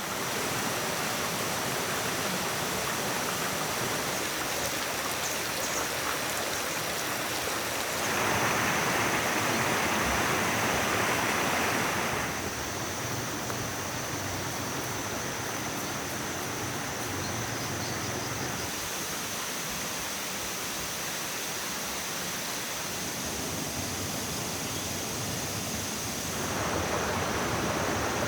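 Steady rushing noise with a thin, steady high tone above it. It grows louder for about four seconds starting some eight seconds in, and again near the end.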